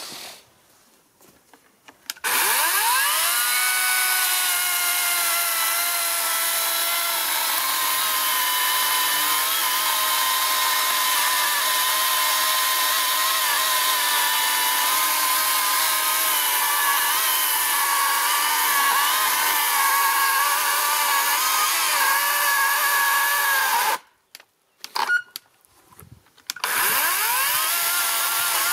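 Einhell GP-LC 36/35 cordless chainsaw, run on two 18 V batteries, spinning up about two seconds in with a rising whine and then cutting through a log with a steady electric-motor whine that wavers slightly under load. It cuts off suddenly near the end, a few clicks follow, and then it spins up again.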